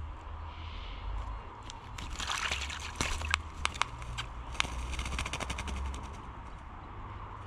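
A wattlebird bathing in a bird bath: a rapid run of splashing and wing-fluttering in the water, starting about two seconds in and lasting about four seconds.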